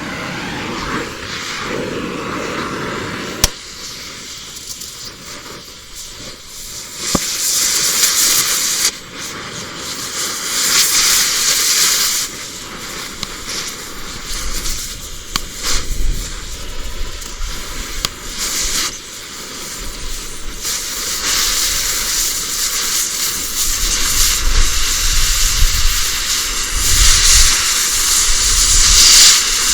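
Steel being cut off a skid steer wood splitter: a loud hissing, crackling noise that swells and fades, with a few sharp clicks.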